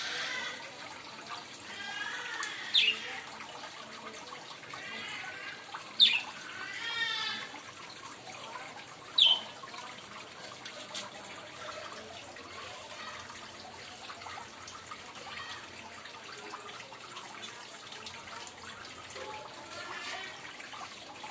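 Parrot calling: a few short, sharp squawks and some harsh chattering calls in the first ten seconds or so, over a steady hiss like trickling water; after that it falls mostly quiet apart from the hiss.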